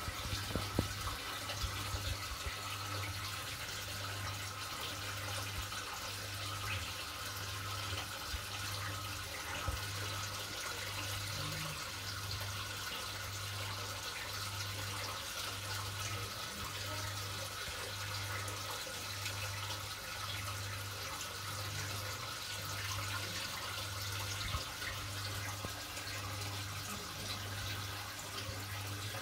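Aquarium water circulating: a steady rush of water from the tank's circulation pump, with a low hum that swells and fades about once a second. A few light knocks in the first second.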